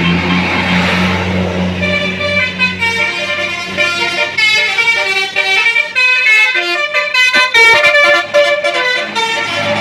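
A bus engine runs low and steady. From about two seconds in, a telolet horn, the multi-tone musical air horn of an Indonesian tour bus, plays a quick run of changing notes that lasts to near the end.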